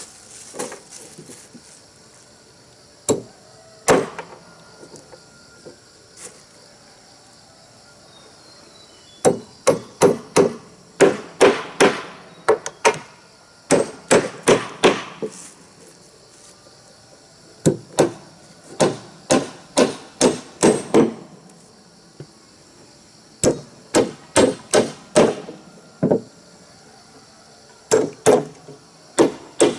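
Hammering on wood: runs of sharp blows, about two a second, broken by pauses of a few seconds, as wall boards of a wooden house are fixed in place.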